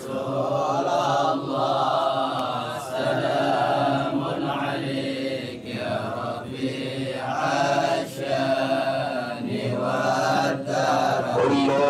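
A man's voice chanting Arabic verse unaccompanied, in long drawn-out melodic phrases with short breaks between them.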